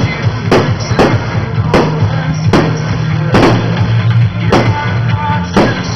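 Fireworks going off in a rapid irregular series of sharp bangs, about one every half second to second, over music.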